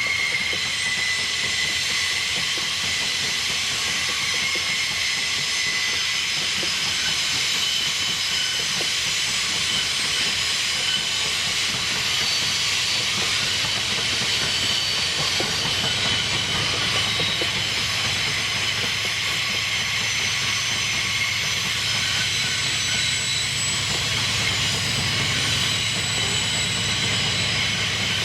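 Train cars rolling past, their steel wheels giving a continuous high-pitched squeal against the rails with a steady hiss. A low rumble builds from about halfway through.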